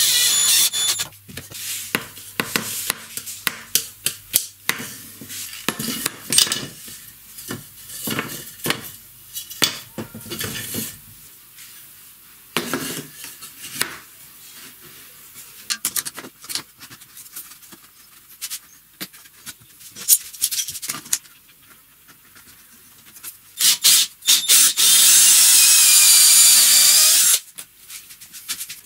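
Workshop handling noise: scattered knocks and clicks as wooden parts are moved and fitted. About 24 seconds in, a cordless drill runs steadily under load for about three seconds, then stops.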